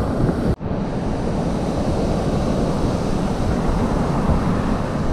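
Strong onshore wind buffeting the microphone over rough surf breaking on the beach: a steady, rumbling rush. The sound drops out for a split second about half a second in.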